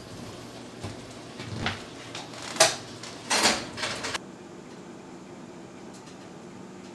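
A few short, sharp noises over about four seconds, the loudest about two and a half seconds in, then only faint steady room tone.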